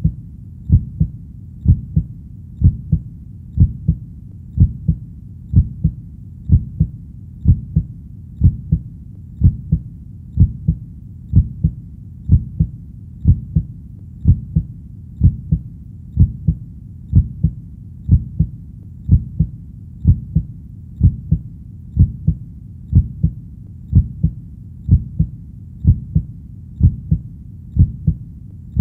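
Human heartbeat: a steady 'lub-dub' double thump, low-pitched, repeating a little under once a second at an even resting pace.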